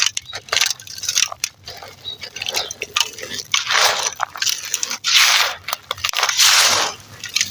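Dry, gritty clay or dirt being crumbled and crushed by hand, giving many short crunches and crackles with a few longer grinding crunches near the middle and end.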